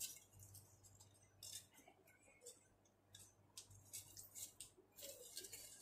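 Near silence: room tone with a faint low hum and a few faint scattered clicks.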